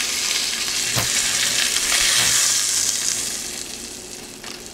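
Brown butter and olive oil sizzling and bubbling in a stainless steel frying pan on a gas burner, with a single sharp click about a second in. The sizzle dies down toward the end.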